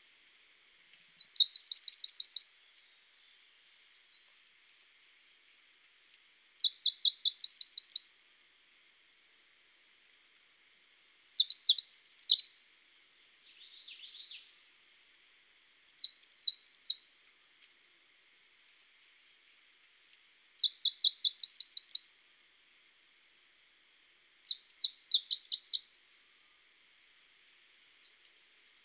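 A songbird singing: short, fast, high trilled phrases, each a little over a second long, repeated about every four to five seconds, with single short chirps between them.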